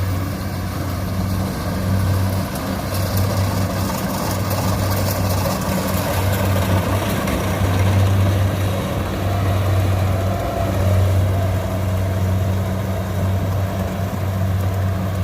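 Diesel engines of Kubota and Yanmar rice combine harvesters running steadily under load as they cut rice, a constant low drone.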